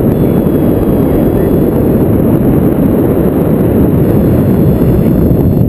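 Wind buffeting a paraglider's harness-mounted camera microphone in flight: a loud, steady low rumble.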